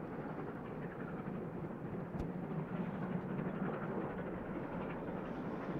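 Triple-headed steam train approaching in the distance, heard as a steady low rumble that swells slightly partway through.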